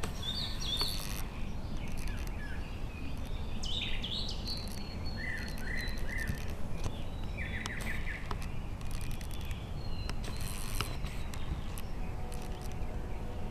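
Songbirds chirping and calling, short scattered chirps and trills, over a low steady background rumble.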